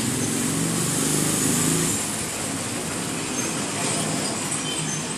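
Steady hiss of background traffic noise, with a low voice murmuring during the first two seconds.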